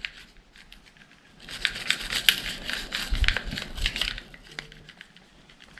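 Scratchy scrubbing and rustling from cleaning pistol parts by hand, in a burst of about two and a half seconds with a dull bump near the middle.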